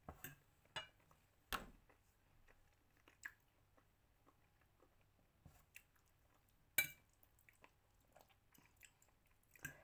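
Quiet chewing of stir-fried pansit noodles, with a few short, sharp clicks scattered through; the loudest come about a second and a half in and about seven seconds in.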